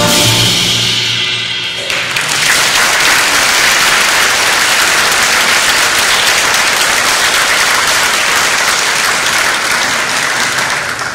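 A wind band's final chord rings out and dies away over about two seconds, then the audience applauds steadily, the clapping fading near the end.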